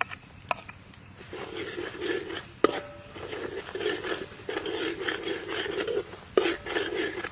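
A metal spatula scraping and stirring chopped aromatics frying in oil in a wok, in repeated strokes from about a second in. A sharp clank of the spatula on the wok comes about two and a half seconds in, and another near the end.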